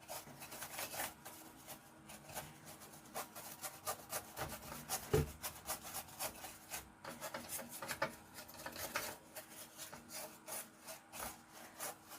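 Rapid, irregular scrubbing strokes over a circuit board as it is cleaned with isopropyl alcohol.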